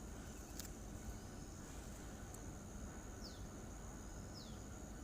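Faint background with a steady high-pitched whine, a single click about half a second in, and three short falling chirps about a second apart in the second half.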